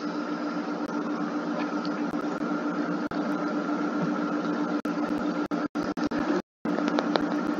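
Steady hum and hiss with a low drone and a higher held tone, dropping out briefly to silence a few times near the end.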